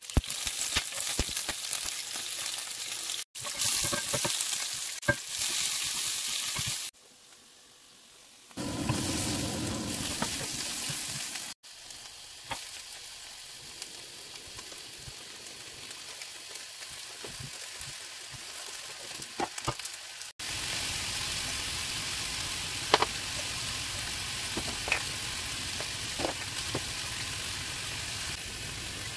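Oil sizzling in a frying pan as whole spices and vegetables fry, with scattered sharp clicks. The sizzle breaks off and resumes at several cuts, louder in some stretches and quieter in others.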